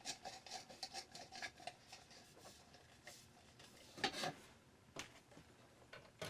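A C7 bulb being screwed back into a Christmas-light socket: a run of small scraping clicks, then a couple of louder scrapes about four and five seconds in.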